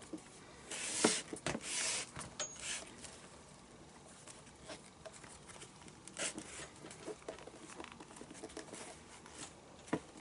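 Leather lace being drawn through the lacing holes in the fingers of a leather baseball glove, rubbing and scraping against the leather, with small clicks and rustles of handling. Two longer swishes of the lace being pulled come about a second in and again just after, followed by softer, scattered tugs.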